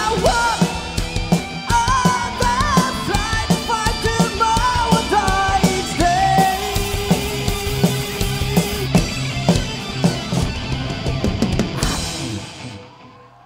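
Live rock band playing: a male singer over electric guitar, bass guitar and drum kit. About twelve seconds in the song ends on a final hit that rings out and fades.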